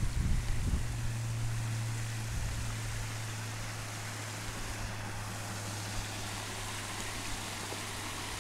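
Steady rush of a small rocky moorland stream. Wind buffets the microphone near the start, and a low steady hum sits under the noise.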